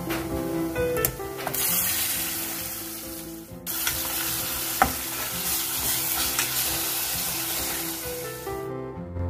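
Raw minced chicken sizzling as it goes into hot oil and fried onions in a steel pot and is stirred in with a metal spoon. The sizzle dips briefly about a third of the way in, and there is a sharp clink of the spoon about halfway through.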